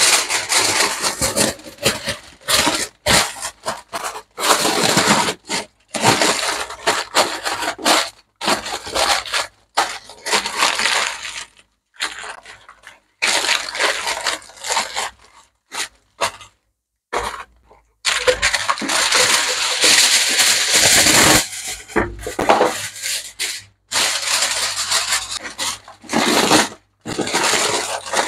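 Aluminium foil crinkling and crackling as it is folded and pressed around a joint of meat, in loud irregular bursts with short pauses between, the longest stretch about two-thirds of the way through.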